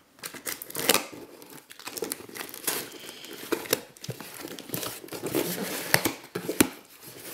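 Cardboard shipping box being opened by hand: slit packing tape pulled apart and the cardboard flaps rubbed and folded back, giving a run of irregular scrapes, rips and crinkles.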